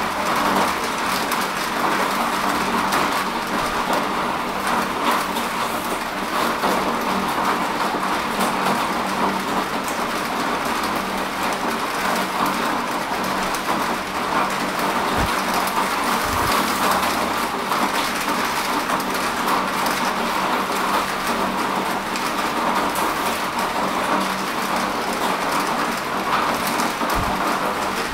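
Steady rain falling, an even hiss with no let-up. A few brief low thuds come through, twice about halfway and once near the end.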